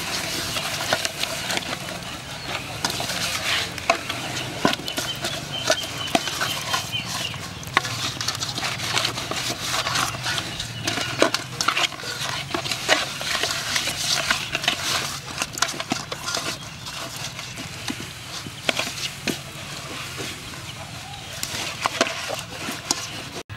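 Hands rubbing sauce into a whole fish in an aluminium bowl: wet squishing and slapping, with many small clicks and knocks of hands and fish against the metal bowl.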